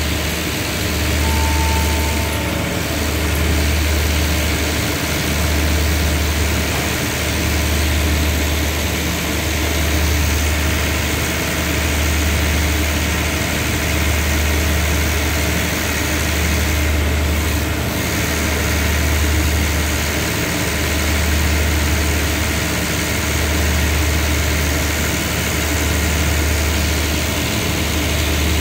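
Diesel engine of a standing passenger train idling, a low hum that swells and fades about every two seconds over a steady hiss.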